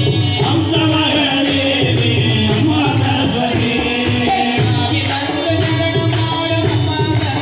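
Tamil devotional bhajan sung in chorus over a steady beat of sharp clicks, about two a second, from kolattam dance sticks struck together.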